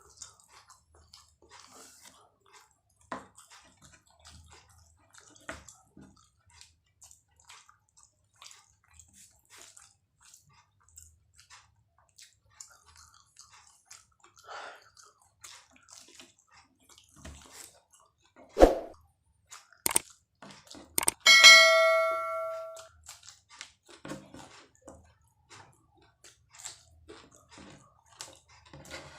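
Soft, scattered chewing and mouth clicks of someone eating egg martabak. About two-thirds in comes a sharp knock, then a dish or utensil is struck and rings out with a clear clink for about a second and a half.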